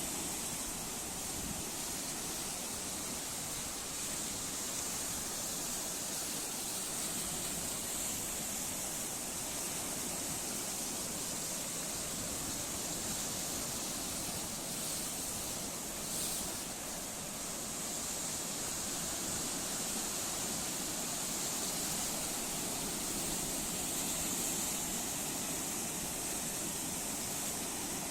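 Sea waves washing in: a steady hiss of surf that swells and eases slowly.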